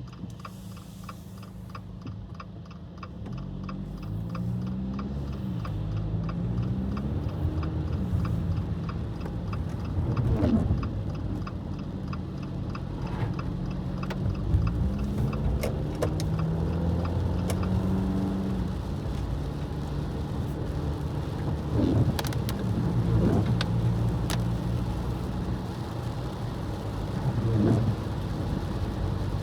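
A car being driven, heard from inside: the engine pitch rises and drops several times as it speeds up through the gears, over a steady road rumble, with a few short sharp knocks.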